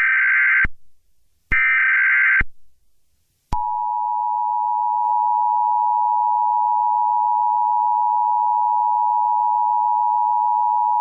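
Emergency Alert System SAME header: short, shrill, buzzing digital data bursts about a second each, the last two of three heard at the start. Then, about 3.5 s in, the long steady two-tone EAS attention signal sounds and holds on.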